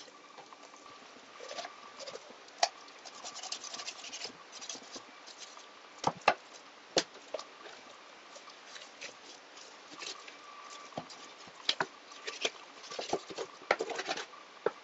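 Kitchen knife cutting the legs off a raw broiler chicken on a wooden cutting board: soft scraping and handling of the raw meat, with several sharp clicks and knocks scattered through.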